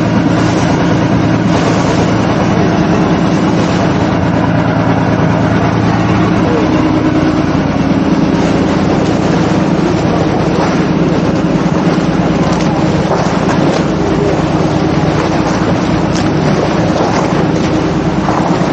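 Small open boat's motor running steadily at cruising speed, with the rushing wash of its wake churning at the stern. The engine's drone is plainest in the first few seconds, after which the water noise takes over.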